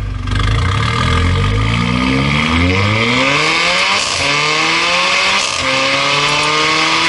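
Mercedes-Benz CLA45 AMG's turbocharged 2.0-litre four-cylinder, breathing through a Fi catless X-pipe valvetronic exhaust with the valves open, accelerating hard. The pitch climbs steadily, with two brief dips about four and five and a half seconds in as it shifts up.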